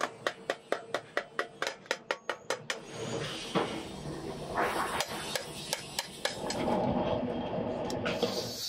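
Hammer beating the edge of a galvanized sheet-steel bucket in quick, even blows, about five a second, stopping about three seconds in. A steadier rough scraping of metal follows.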